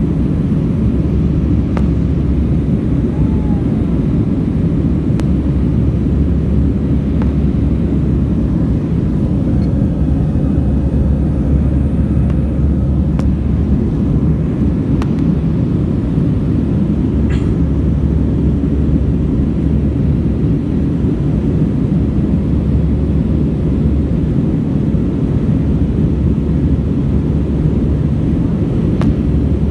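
Steady low rumble of a jet airliner's cabin noise, engines and airflow heard through the fuselage, with a few faint clicks.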